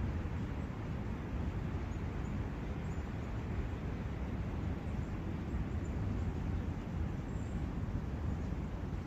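Steady rushing of a brook, an even, low-heavy wash of water noise, with a few faint, high bird chirps now and then.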